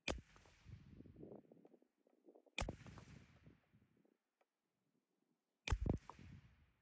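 Three shots from a Ruger 10/22 .22 LR rifle, about three seconds apart, each followed by a short fading echo.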